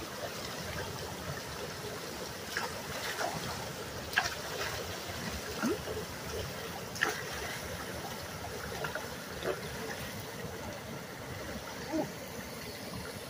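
Water running steadily at a beaver-clogged culvert, with a few short splashes and knocks spread irregularly through it as a long-handled tool is jabbed into the sticks and mud of the dam.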